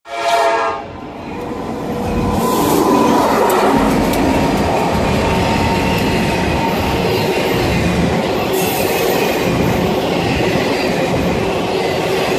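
A CSX diesel locomotive's horn sounds a short blast that stops under a second in. Then the lone locomotive passes close by, followed by a long string of autorack freight cars rumbling past, their wheels clacking over the rails.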